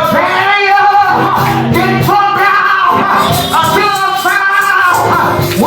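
Loud gospel praise music: keyboard and drums playing, with a voice singing over them.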